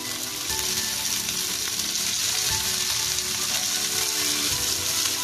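Diced potatoes, crisped with garlic in olive oil, sizzling steadily in a hot nonstick pan under spring onion greens and coriander. The pan is still sizzling just after the flame has been turned off and lemon juice added.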